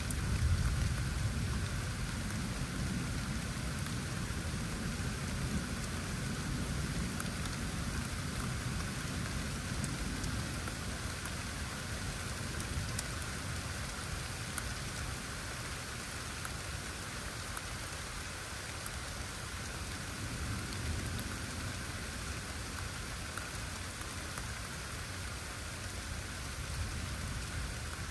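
Steady rain falling, with a low rumble of thunder dying away over the first few seconds.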